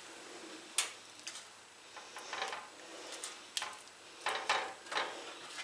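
Light kitchen handling noises: several sharp clicks and knocks of utensils and dishes, spaced irregularly, with soft shuffling between them.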